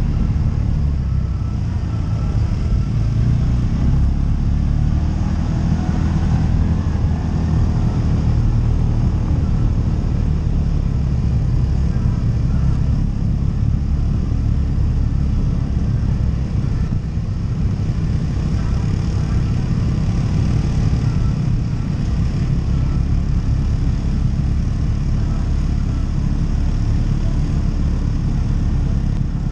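ATV engine running steadily while riding, a continuous low rumble.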